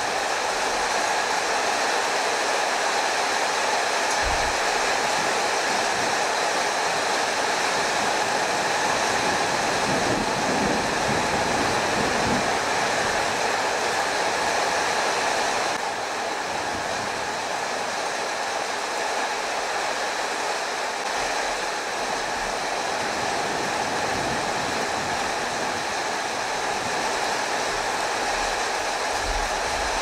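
Steady rushing storm noise of heavy rain and wind. It eases slightly about halfway through, with a few low rumbles.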